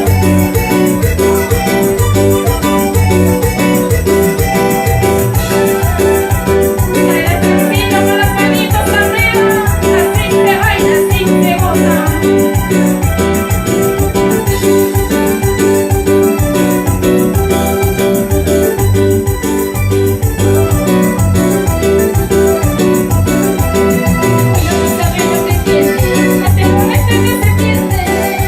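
Live band music led by an electronic keyboard playing in an organ-like voice, over a steady bass and drum beat.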